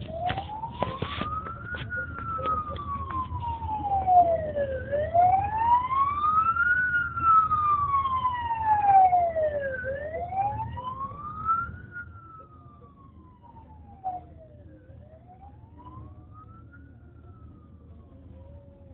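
Emergency vehicle siren in a slow wail, rising and falling about every five seconds. It is loud for about twelve seconds, then fades. A low steady traffic rumble runs underneath.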